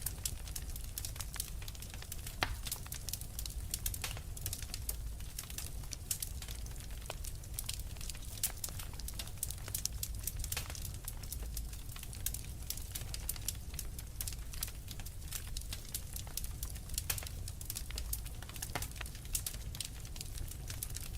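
Wood fire burning in a fireplace: many small irregular crackles and pops over a low steady rumble.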